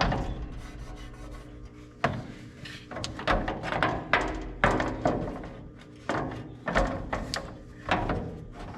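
A fan shroud being fitted to a truck radiator: a string of irregular knocks, clunks and rubbing scrapes as it is shifted and pushed into place.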